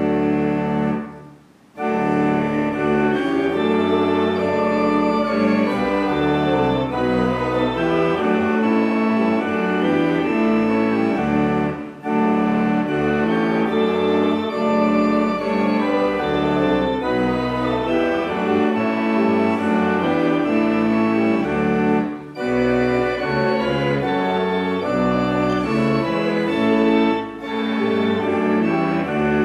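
Organ playing a hymn tune in sustained chords, with short breaks between phrases.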